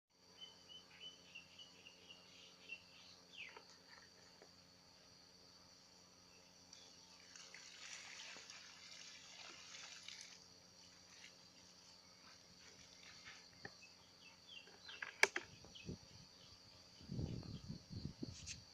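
Faint outdoor ambience with a steady high insect drone, scattered light clicks and knocks, and a few low thuds near the end.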